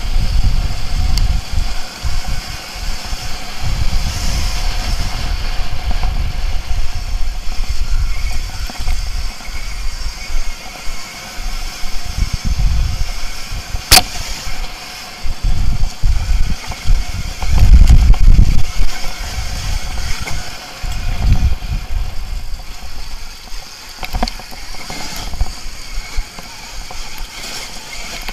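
Onboard sound of a KTM Freeride E electric dirt bike riding a rough gravel track: wind buffeting the camera microphone and the bike rattling over stones, in uneven gusts, with one sharp knock about halfway through.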